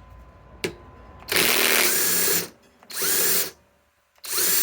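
Flex FX 1451 mid-torque cordless impact wrench hammering on a 6-inch power lag screw in three bursts, a long one of about a second and then two shorter ones, each starting with a rising motor whine. It is trying to back the lag out, and the lag's head snaps off.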